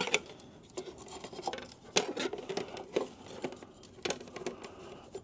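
Scattered light clicks, taps and rubbing as cables and the speed controller are handled and worked free of an e-bike frame.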